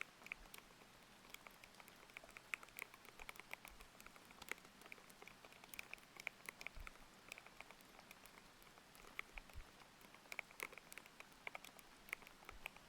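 Thocky mechanical keyboard with Aqua King linear switches being typed on: a quick, irregular run of soft keystrokes, about several a second, with a faint layer of rain underneath.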